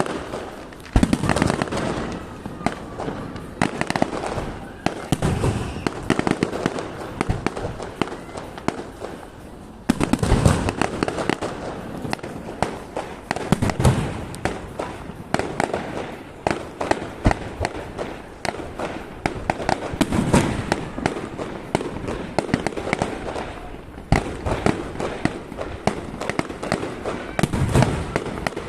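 Fireworks display: crackling and popping runs on throughout, with heavier booming shell bursts every few seconds.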